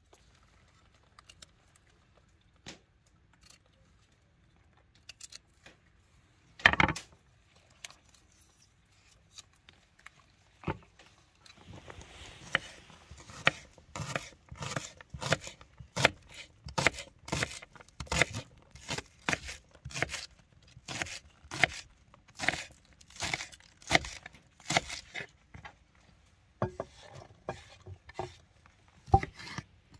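Kitchen knife chopping green onions on a wooden cutting board: a steady run of sharp knocks, about two a second, through the second half. Before that there are a few sparse handling clicks and one louder rustle about seven seconds in.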